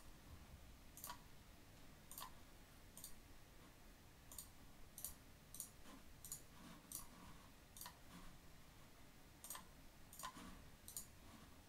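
Faint computer-mouse clicks, about a dozen at irregular intervals of roughly a second, as checkboxes and rows are clicked in a software interface.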